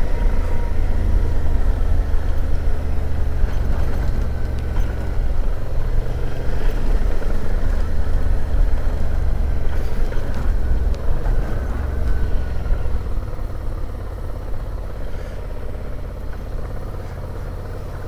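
Suzuki V-Strom 650's V-twin engine running under way, with heavy wind rumble on the helmet microphone; it grows quieter over the last few seconds.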